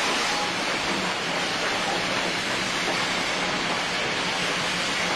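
Passenger train coaches rolling past, making a steady rushing noise with no distinct wheel clicks.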